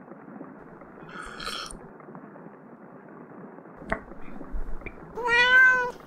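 AI-generated sound-effect mix: a steady bed of muffled rain, a brief sip about a second in, a short knock near four seconds, then one cat meow near the end that rises and falls in pitch and is the loudest sound, a little too loud against the rain.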